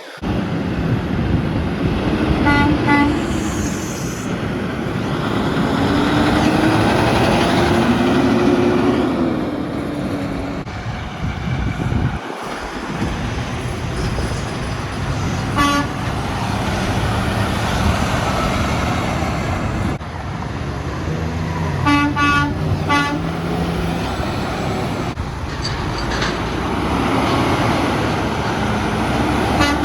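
Heavy highway traffic with semi-trucks going by, broken by short toots of a truck air horn. There are single blasts a few seconds in and about halfway through, a quick string of toots about three-quarters of the way through, and more toots at the very end.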